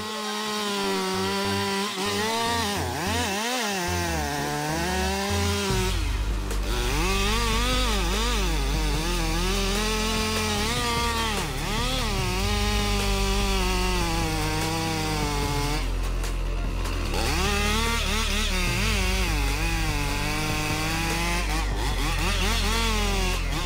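Chainsaw engine running hard, its pitch swinging up and down again and again as it is revved and bites into the wood. A deep steady rumble joins underneath about six seconds in.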